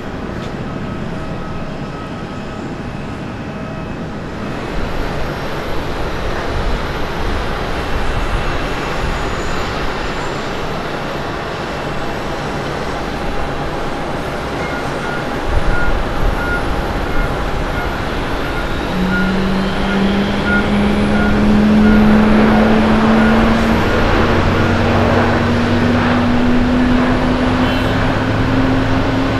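Jet airliner noise: first an Airbus A330 climbing out, then a Boeing 737-800 landing. A short thud comes near the middle as it touches down, then its CFM56 engines spool up with a slowly rising whine as it rolls out down the runway.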